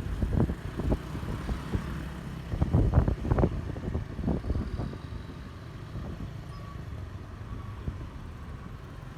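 Road vehicle noise: a low rumble with irregular bumps over the first five seconds, then steadier and quieter. No horn is sounding.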